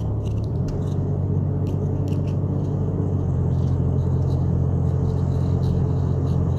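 Van driving at a steady speed, heard from inside the cab: a steady low drone of engine and road noise with a few faint light rattles.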